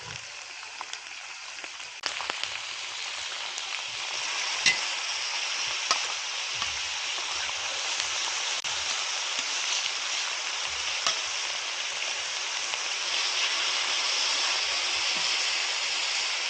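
Food frying in a hot pan: a steady sizzle that gets louder about two seconds in, with a few light clicks.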